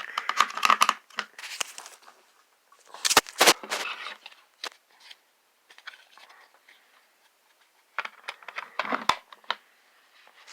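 Plastic clicks, scrapes and rattles of a battery-powered video doorbell being handled as an 18650 lithium-ion cell is slid into its battery compartment. They come in three bursts: at the start, about three seconds in, and about eight seconds in.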